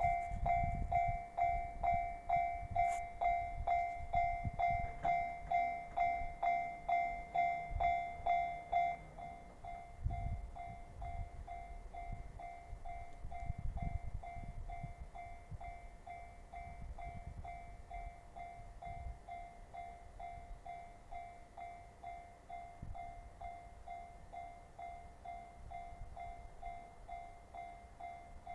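Japanese railway level-crossing warning bell ringing about twice a second, a repeating pitched ding that drops to a lower level about nine seconds in. Low rumbling comes and goes underneath.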